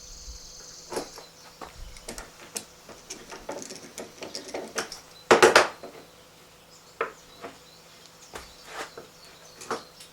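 Clamping squares being fitted against a freshly glued wooden shelf joint: scattered clicks and knocks of the clamps on wood, with a loud rattling clatter about halfway through.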